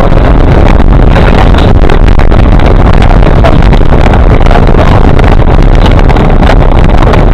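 Vehicle driving over a rutted dirt track, heard from inside the cab: steady engine and road noise with many quick knocks and rattles, recorded so loud that it clips.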